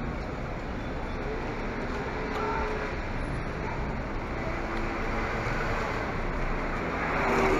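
Street traffic: a steady wash of car engines and tyre noise, swelling briefly near the end.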